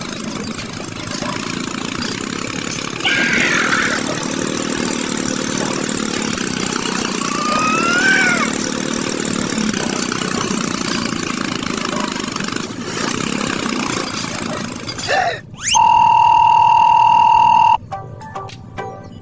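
Background music, then a loud steady beep tone lasting about two seconds near the end.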